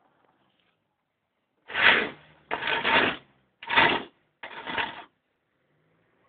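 Four bursts of scratchy rubbing noise close to the microphone, about a second apart.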